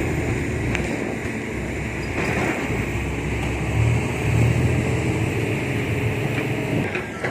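Heavy truck engine running with a low rumble that swells about four seconds in, under a steady rushing noise.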